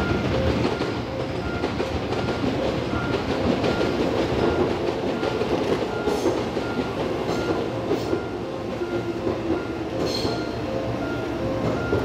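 A train passing over the far tracks with a steady rumble and wheel clatter, a few sharp clicks about halfway through. Over it a level-crossing warning bell rings steadily at two alternating pitches, the crossing being closed for the train.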